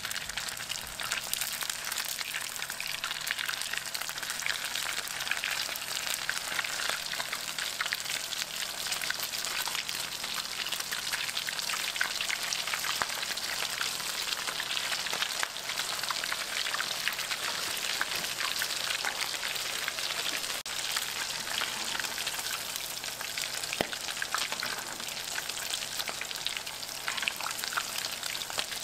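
Filled corn-tortilla tacos deep-frying in hot oil in a cast iron skillet: a steady, dense sizzle full of small crackling pops.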